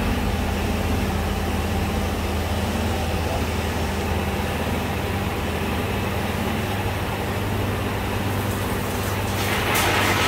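Industrial plastic sheet shredder, driven by a Crompton electric motor through a helical gearbox, running with a steady hum. Near the end a louder, rougher noise joins in.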